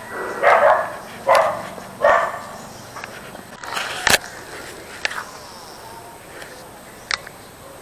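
A dog barking three times in quick succession, followed by a single sharp click about four seconds in.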